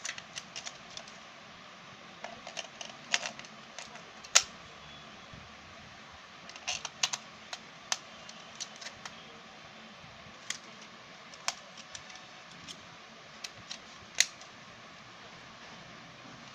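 AA batteries being fitted into a plastic RC car remote's battery compartment and the compartment closed: an irregular scatter of small plastic and metal clicks and knocks.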